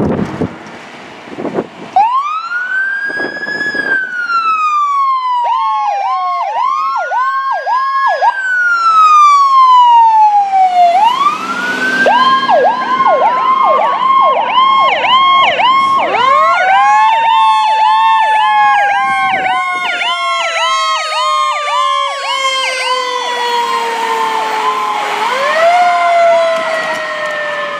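Emergency vehicle sirens on a response run. Electronic sirens alternate a rising-and-falling wail with a rapid pulsing yelp at about two pulses a second. Partway through, a Federal Q mechanical siren joins, winding up, coasting slowly down and winding up again near the end.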